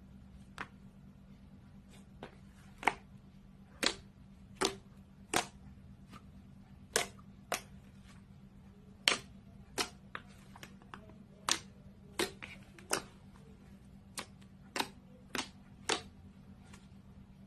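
Slime being pressed and worked by hand, giving about twenty sharp, irregularly spaced pops and clicks.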